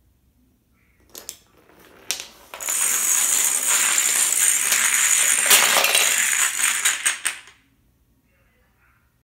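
Dominoes toppling in a chain reaction. A few scattered clicks come about a second in, then a dense clatter of many tiles falling against each other runs for about five seconds and stops suddenly.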